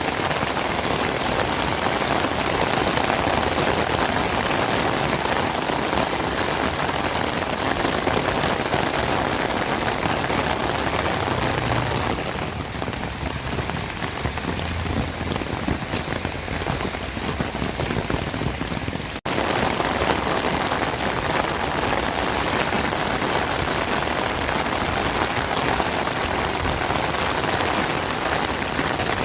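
Heavy rain falling steadily, a dense even hiss of drops on surfaces. It eases slightly for a few seconds before midway and cuts out for an instant about two-thirds of the way through.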